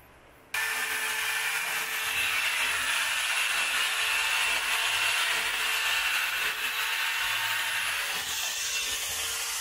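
Yellow cordless power drill boring into a wall, starting suddenly about half a second in and then running steadily.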